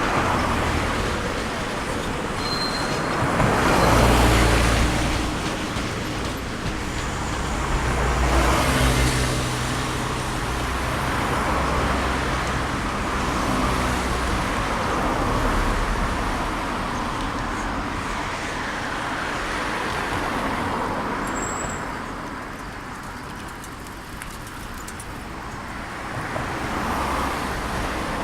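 Road traffic passing close by: cars and heavy vehicles going by one after another, with the loudest passes about four and nine seconds in and a low engine drone from the heavier vehicles.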